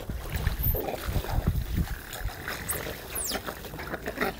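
Lake water splashing and lapping around a small boat as fishing cormorants paddle and a long-handled net is dipped in, over an uneven low rumble.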